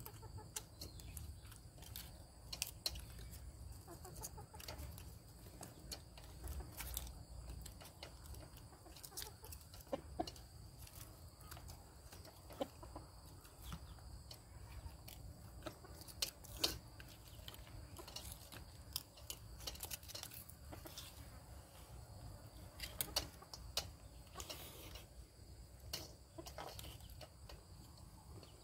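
Chickens clucking, with many short sharp clicks of clam shells and other eating by hand.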